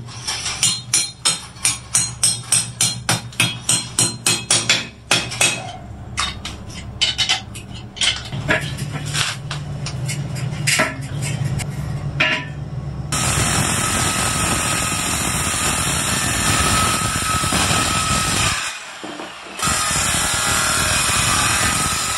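Hammer blows struck repeatedly, about two or three a second, for roughly the first thirteen seconds. After that a steady power-tool noise takes over, breaking off briefly near the end.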